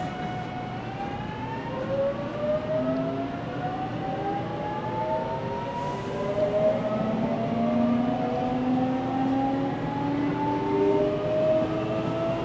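Toshiba GTO-thyristor VVVF inverter and traction motors of a JR Kyushu 813 series 200 electric train whining as it accelerates: several tones climb in pitch together, jumping to new pitches a few times, over the steady running rumble.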